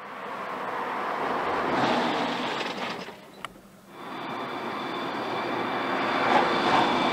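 A car driving on a test track: steady tyre and road noise that swells and then fades, broken by one sharp click a little past halfway. After the click the road noise of a car approaching at speed comes back with a steady whine over it.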